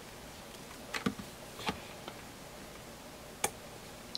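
A handful of light clicks and taps from batteries being seated in a plastic timer case and the case being handled. The sharpest click comes about three and a half seconds in.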